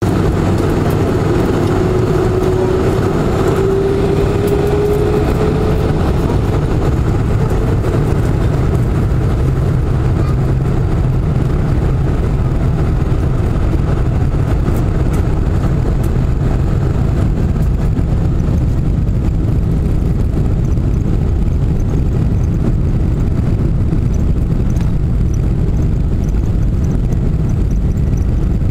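Boeing 747-400's jet engines running at low power, heard inside the cabin as a steady low rumble while the airliner taxis. A thin whine rises slightly in pitch about two seconds in and fades out a few seconds later.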